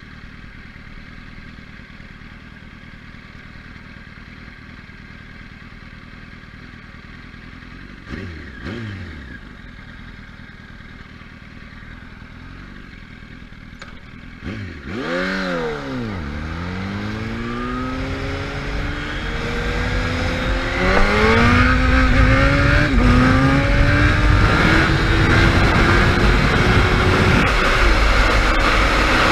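Sport bike engine idling at a stop, blipped briefly about eight seconds in and revved hard about halfway. It then accelerates away, climbing in pitch and dropping back at each upshift, and settles into a loud, steady cruise with wind rushing on the microphone.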